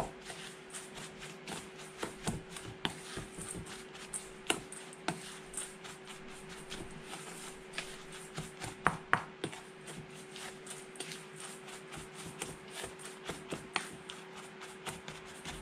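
Plastic spatula stirring a dry, crumbly flour-and-seed mixture in a stainless steel bowl: irregular scrapes and clicks against the metal, loudest about nine seconds in, over a steady faint hum.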